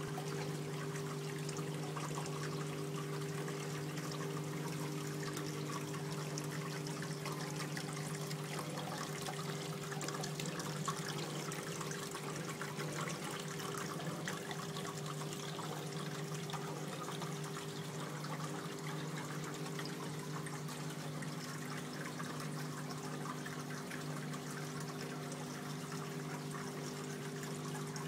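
Water from a slate wall fountain sheeting down the slate panel and trickling past river rock in the basin: a continuous even splash and trickle. A steady low hum runs underneath.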